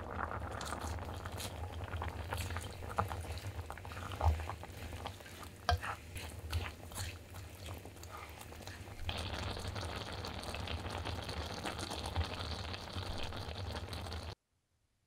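Tteokbokki in thick chilli sauce bubbling in a pot over a steady low hum, with a wooden spoon stirring and now and then knocking against the pot. The bubbling gets louder about nine seconds in, and the sound cuts off suddenly near the end.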